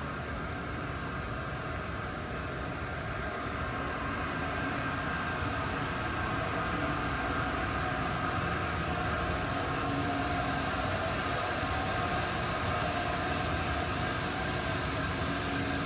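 Steady mechanical hum of factory plant, a continuous noise with a few faint steady tones running through it, growing a little louder a few seconds in.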